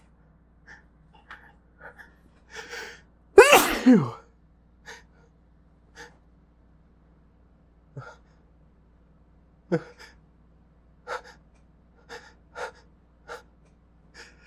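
A man sneezes once, loudly, about three and a half seconds in: an induced sneeze, a voiced 'achoo' that falls in pitch in two quick pushes. Short, quiet breaths and sniffs come and go before and after it.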